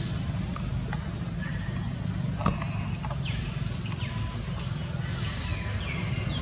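Outdoor woodland ambience: short high chirps repeating about once a second, with a few falling whistles, over a steady low hum.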